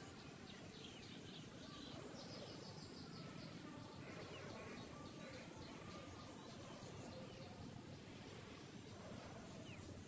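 Faint outdoor ambience at dawn: scattered bird chirps and short calls over a steady high-pitched hiss and a low background rumble.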